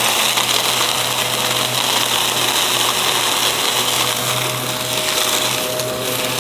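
Aspiron vacuum cleaner running steadily, a constant motor hum under a strong airflow rush.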